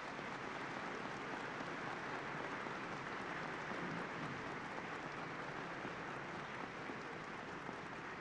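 Audience applauding: an even patter that swells slightly midway and eases off toward the end.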